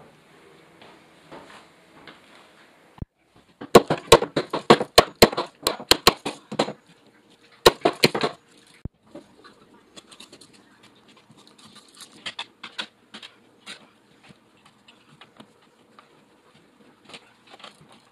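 Handling noises of work at an open wall box: a quick run of sharp, loud clicks and knocks for about three seconds, another short cluster a second later, then lighter scattered tapping and rustling as a blue plastic electrical box is handled and fitted.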